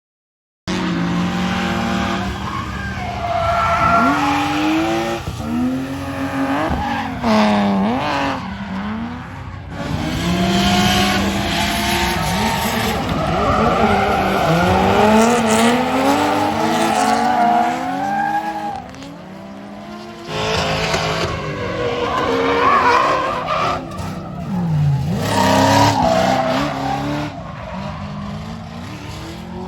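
Drift cars sliding through a course, engines revving hard with pitch rising and falling rapidly as the throttle is worked, over the hiss and squeal of spinning tyres. The sound comes in sharply about half a second in and dips briefly a few times between passes.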